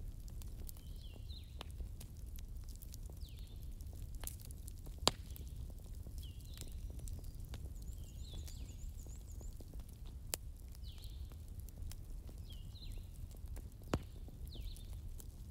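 Wood fire burning: a low steady rumble with scattered crackles and snaps, and a couple of louder pops, one about five seconds in and one near the end. A faint high chirp repeats every second or two.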